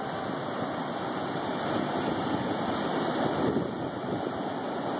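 Big storm surf breaking and washing up the beach: a steady rushing noise without separate crashes standing out.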